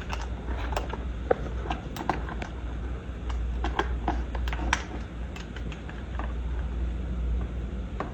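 Irregular small clicks and scrapes of a screwdriver driving a light switch faceplate screw back in, thinning out after about five seconds, over a steady low rumble.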